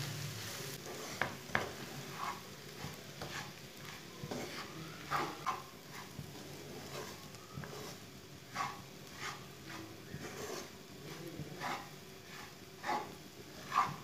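Wooden spatula stirring dry semolina through a chicken and vegetable mixture in a non-stick frying pan, in short, uneven scraping strokes about once a second. A faint sizzle runs underneath as the mixture fries.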